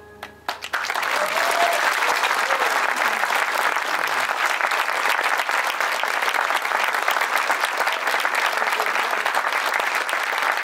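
Audience applause breaking out under a second in, as the last held notes of the music die away, then going on as dense, steady clapping.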